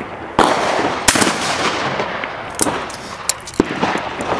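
12-gauge Browning break-action shotgun fired at a clay target: a loud report about half a second in, then a second sharp crack about a second in, each trailing off in echo. Fainter sharp shots follow later.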